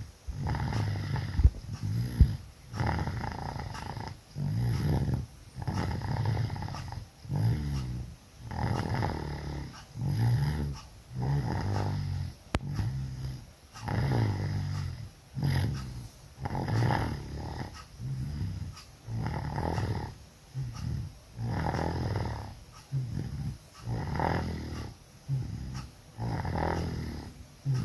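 A person snoring loudly in sleep, with regular snores about every second and a half; the snoring is brought on by flu and a cough.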